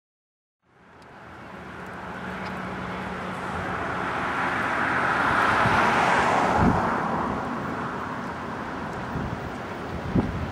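Road traffic: a passing vehicle's tyre and engine noise swells to a peak about halfway through and fades back to a steady traffic background, with a couple of short low thumps in the second half.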